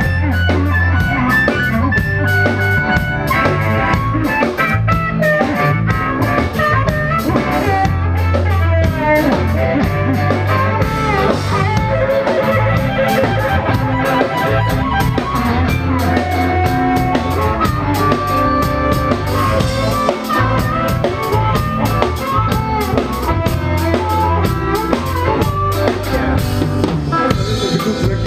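A live blues band: amplified harmonica played into a handheld microphone, wavering melodic lines over electric guitar, bass guitar and a drum kit keeping a steady beat.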